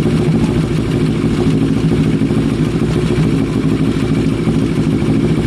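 Kawasaki ER-6f's parallel-twin engine idling steadily, with no change in pitch. It is being run for a couple of minutes on fresh oil and a new filter to let the oil fill up and check for leaks.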